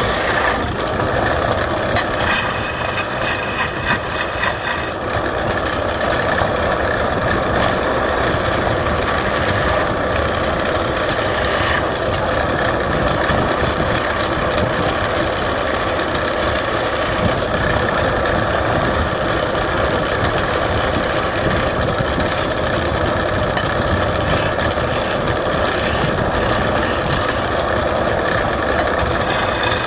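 Wood lathe running steadily while a turning tool cuts the spinning wood, an even noisy whirr that holds level throughout.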